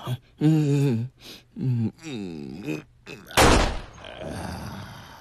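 A man moaning and groaning, exaggerated sounds of sexual climax: several drawn-out moans that fall in pitch, then a loud sudden burst of breath about three and a half seconds in and a long breathy exhale.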